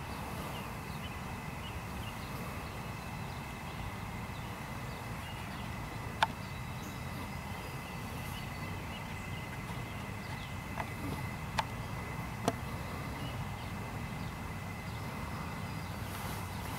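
Outdoor field ambience: a steady faint high hum over a low rumble. One sharp click comes about six seconds in, and three fainter clicks follow a few seconds later.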